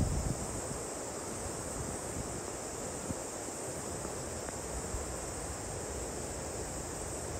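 Steady outdoor ambience: an even hiss with no distinct events, broken only by two faint ticks about three and five seconds in.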